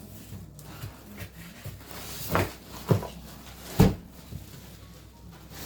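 Handling of a shipping box and its packing: a few dull thumps and knocks, three louder ones in the middle.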